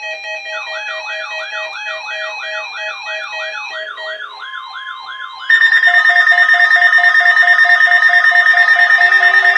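Several emergency alert receivers sounding at once for an EAS required weekly test: overlapping electronic beeping tones, joined about half a second in by a rising warble alarm repeating two to three times a second. About five and a half seconds in, a much louder steady high alarm tone with rapid pulsing beeps comes in.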